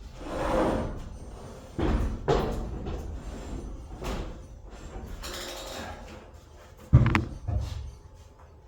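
Knocks and thumps of heavy wooden joists being handled and shifted into place, the sharpest knock about seven seconds in.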